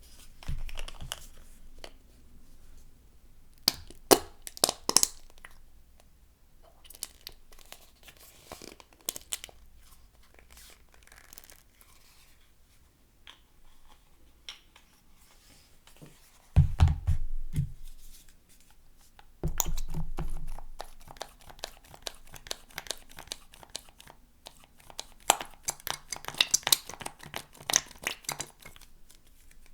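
A tube of cream being squeezed, giving short bursts of wet squelching and crackling, then a liquid soap pump dispenser being pushed down several times, with dull thuds and a quick run of clicky, squishy squirts near the end.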